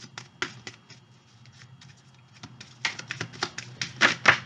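Cards being handled: a series of light clicks and taps, sparse at first and denser in the last second and a half, the loudest pair just before the end.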